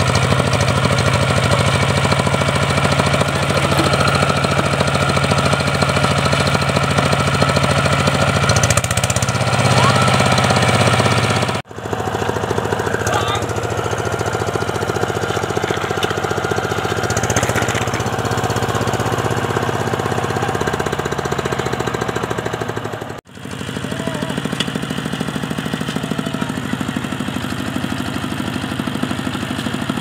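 Single-cylinder diesel engine of a two-wheel walking tractor running steadily, its note shifting a couple of times. The sound drops out for an instant twice.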